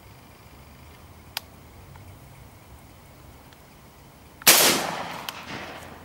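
One shotgun shot from a Beretta Urika semi-automatic shotgun, a loud sudden report about three-quarters of the way in that fades away over a second and a half. A faint sharp click comes about a second in.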